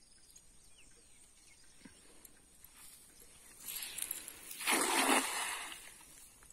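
A cast net is thrown: a short rush of air noise just before four seconds in, then a splash as the net lands on the pond about a second later.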